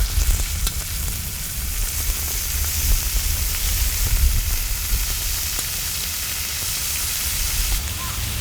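Beef tenderloin sizzling on a cast-iron cauldron-lid (솥뚜껑) griddle: a steady frying hiss, strongest from about two seconds in until near the end, over a low rumble.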